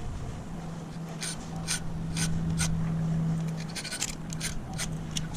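Flat file rasping across a key blank in short strokes, about two a second, then a quicker flurry about four seconds in: the cuts of an impressioned key being lengthened. A steady low hum runs underneath for most of it.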